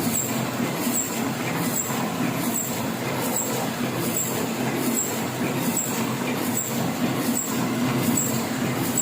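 Heidelberg offset printing press running steadily, with a short click repeating evenly about every 0.8 seconds.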